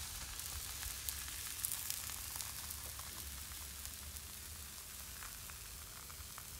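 Rye kefir pancake batter sizzling in an oiled frying pan over a gas flame as it is swirled to spread thin: a steady hiss with small crackles, slowly fading.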